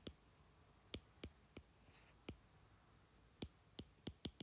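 Stylus tip tapping on a tablet's glass screen while handwriting. About nine faint, sharp clicks come at irregular spacing.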